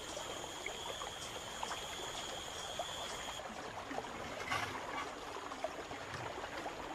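Running and trickling water, a steady wash with small drips. A faint steady high-pitched tone runs over it and stops about halfway through.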